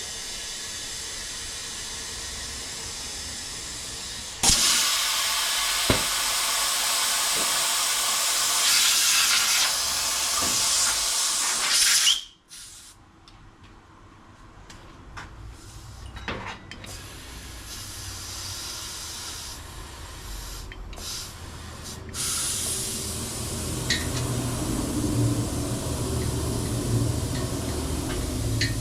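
Compressed air hissing steadily from an air line as a motorcycle tire is inflated. The hiss gets louder about four seconds in and cuts off suddenly near the middle, leaving a quieter low hum.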